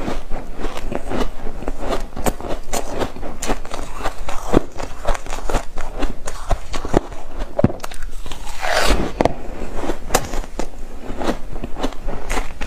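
Crunching and chewing of soft foam ice: a quick, irregular run of crisp crunches as mouthfuls of the frozen ice are bitten off and chewed, with a brief hissing rush about nine seconds in.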